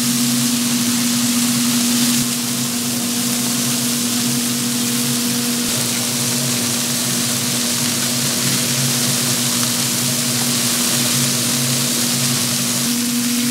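Steady machine hum in a kitchen with an even hiss over it; the level dips slightly about two seconds in.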